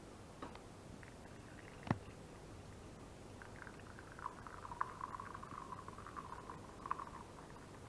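Coffee pouring from a ceramic coffee pot into a porcelain mug: a thin, steady trickle that starts a little over three seconds in and stops about seven seconds in. Before it come a light click and a sharp knock about two seconds in.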